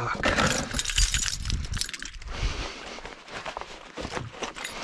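Clattering knocks and scraping of a plastic sit-on-top kayak and its gear against shore rocks, a dense run of sharp knocks in the first two seconds, then scattered knocks.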